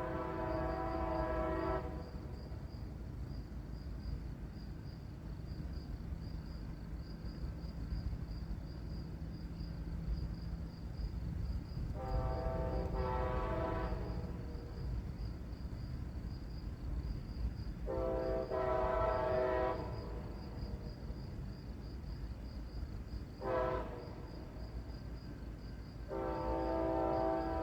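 Amtrak passenger locomotive's multi-chime horn sounding in the distance in the grade-crossing pattern. The tail of one blast ends about two seconds in. Later come two long blasts, a short one, and a long one starting near the end, over a low steady rumble.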